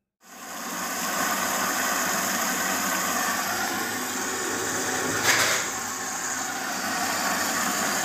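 LG front-loading washing machine filling with water: an inlet valve opens and water rushes steadily through the detergent dispenser drawer into the drum. It starts abruptly and holds, with a brief louder surge about five seconds in.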